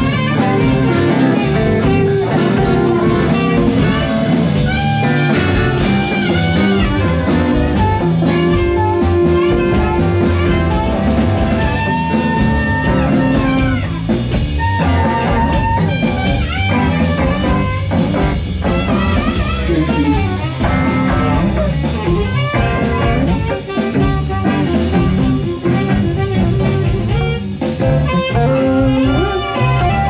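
Live blues band playing: electric guitar and drums, with saxophone and harmonica.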